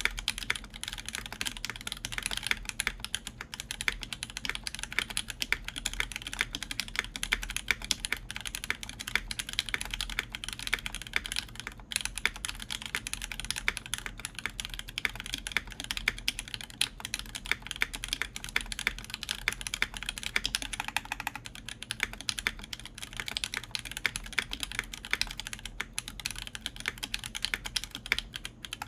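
Fast, continuous typing on a Tech Bear TB-65F mechanical keyboard in its bottom-mount configuration: lubed JWK Alpaca linear switches with 62g springs and TX films, under a full copper plate with GMK Cosmos keycaps. The many keystrokes run together into an even stream of clacks.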